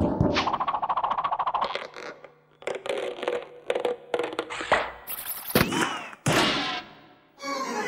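Cartoon sound effects for a small figure tumbling inside a washing machine drum. A fast rattling run of clicks comes first, then scattered knocks and clanks, a short whooshing rush, and a brief sliding whistle that rises and falls.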